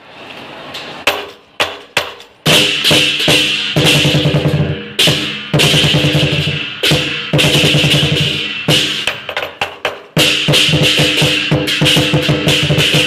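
Lion dance percussion: a large drum beaten with crashing cymbals. A few single strikes come first, then about two and a half seconds in the playing breaks into a fast, loud run of beats that keeps going, with a short pause near ten seconds.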